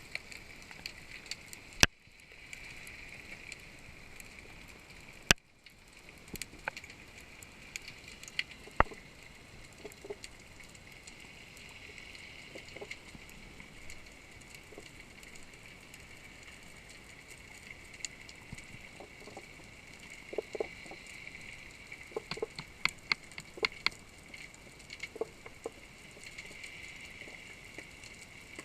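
Underwater ambience: a steady hiss with scattered clicks and crackles, a cluster of them after about twenty seconds. Two sharp, loud knocks come about two and five seconds in.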